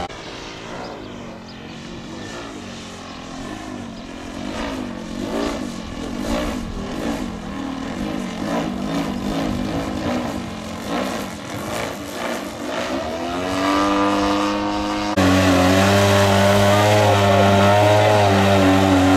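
Radio-controlled aerobatic model airplane's motor and propeller in flight. The pitch swings up and down repeatedly as the plane manoeuvres. Near the end it rises to a steady, louder drone and jumps suddenly louder as the plane hangs nose-up in a hover on the propeller.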